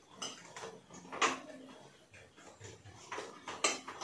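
Clinks and knocks of dishes and spoons on plates at a meal table: a handful of short sharp strikes, the loudest about a second in and a quick cluster near the end.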